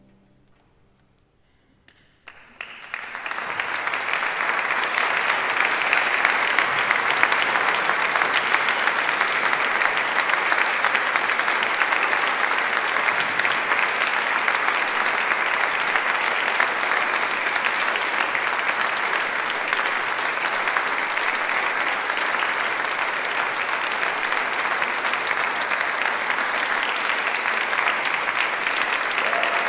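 About two seconds of hush as a piece of chamber music ends, then audience applause starts and carries on steadily.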